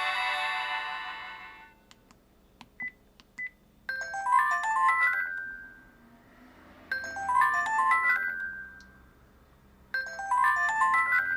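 Built-in ringtones of a Sharp-made Vodafone V601SH mobile phone playing from its speaker. A held electronic chord ends about two seconds in, a few short beeps follow, then a short, quick run of synthesized notes repeats about every three seconds.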